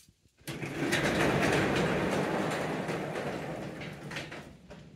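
A sectional garage door rolling up on its tracks: a loud rattling rumble of rollers and panels that starts suddenly, then fades over about four seconds as the door reaches the top.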